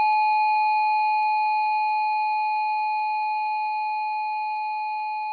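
A steady high electronic tone, one pure pitch held without a break and slowly getting quieter.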